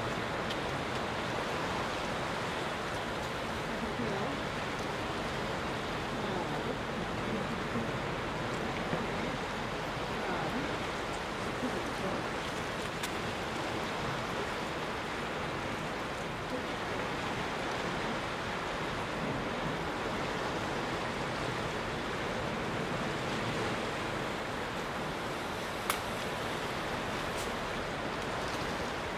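Steady wash of sea surf on a rocky shore, with a single sharp click near the end.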